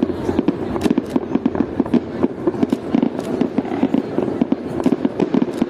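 Fireworks display: a rapid, continuous barrage of bangs and pops, many per second, at a steady density.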